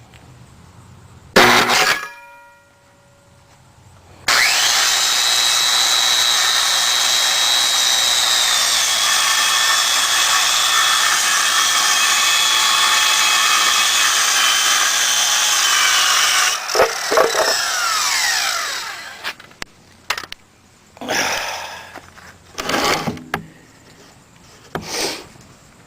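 Electric power saw cutting wood for the porch-step repair. It runs in a brief burst, then makes one long steady cut of about twelve seconds with a steady high whine. The motor then winds down with a falling whine, followed by several knocks and clunks as wood is handled.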